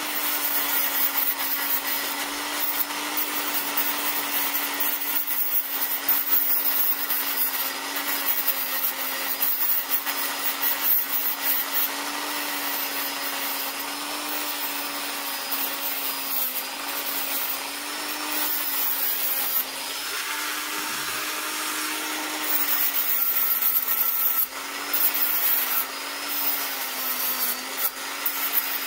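Small handheld rotary tool running steadily at high speed, its bit grinding burrs off a metal edge. Once, about two-thirds of the way through, the motor bogs down briefly under pressure before picking up again.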